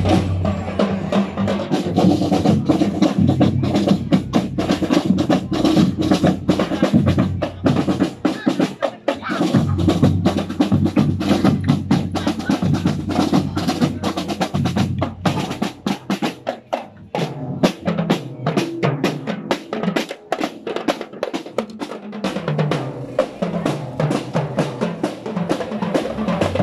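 Marching drum corps playing: snare drums rattling and rolling over a steady bass drum beat. The lower sustained tones drop out for several seconds after the middle, leaving the drums alone.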